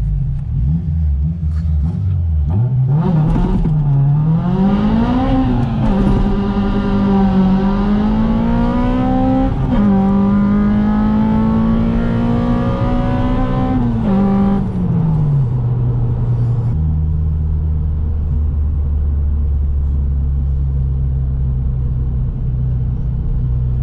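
Honda Civic Type R EP3's 2.0-litre four-cylinder engine, breathing through a Toyosports 4-2-1 decat manifold and Spoon N1 back box, pulling away under acceleration. The revs climb with two brief dips at gear changes, then fall about fifteen seconds in and settle to a steady low drone.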